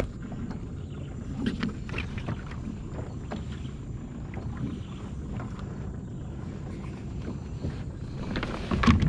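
Small fibreglass boat sitting on a river: steady low wash of water and wind, with scattered light knocks on the hull as a rope is handled over the bow, and a louder clatter of knocks near the end.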